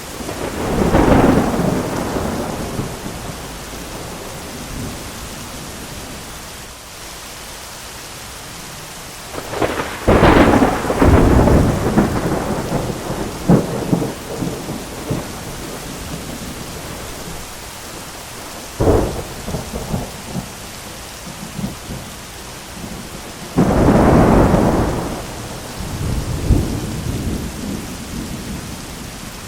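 Thunderstorm: steady rain with repeated thunder. A rolling crack of thunder about a second in, a longer crackling peal around ten seconds that rumbles on for several seconds, a sharp clap near nineteen seconds, and another heavy peal near the end.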